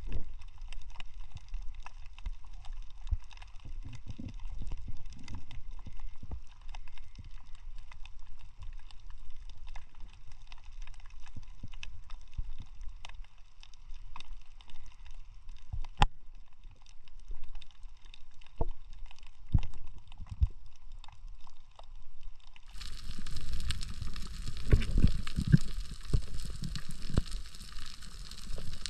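Muffled underwater sound picked up by a submerged camera: a low rumble of moving water with scattered sharp clicks. About three-quarters of the way through, a steady hiss and heavier rumbling come in suddenly.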